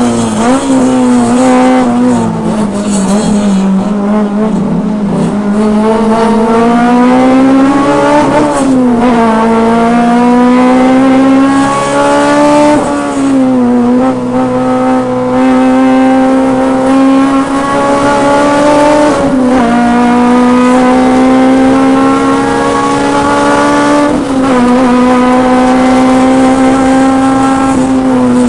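Car engine running hard on a racetrack lap, its pitch climbing slowly and then dropping sharply five or so times, a few seconds apart, as the car shifts or lifts.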